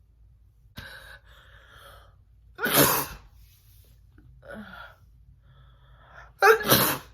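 A woman sneezing twice, about four seconds apart, each loud sneeze preceded by gasping breaths.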